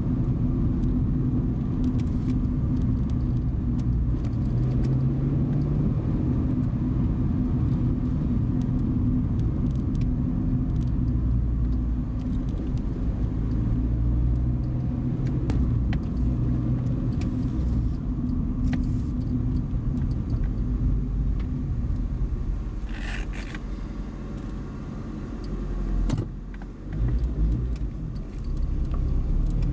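Car driving on the road: steady engine hum and low road rumble, the engine note shifting up and down with speed. The sound drops briefly near the end, then the engine note rises as the car speeds up.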